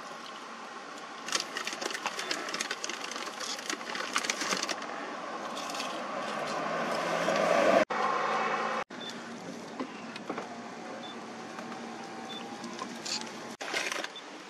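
Vehicle engine and tyre noise on the road, growing louder over a few seconds and then cut off suddenly twice. Crackling and clicking handling noise comes earlier.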